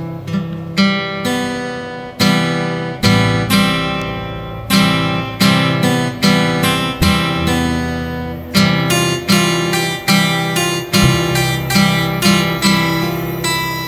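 Background music: an acoustic guitar strumming and picking chords at a steady pace.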